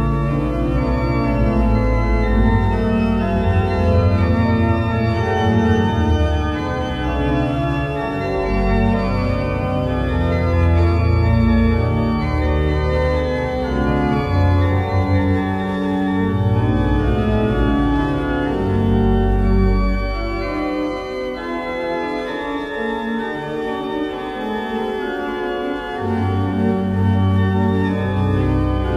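Pipe organ playing slow, sustained chords over deep bass pedal notes. The bass drops out for several seconds in the last third and comes back near the end.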